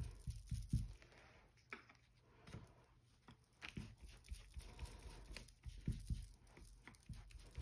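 Soft, irregular taps and light rustling of a makeup brush being dabbed on an ink pad and onto paper on a tabletop, with a quieter stretch of a couple of seconds after the first second.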